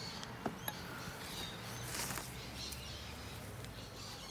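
Low steady hum of honeybees on an open hive, with a couple of light clicks about half a second in and a short rustle about two seconds in from the wooden frames being handled.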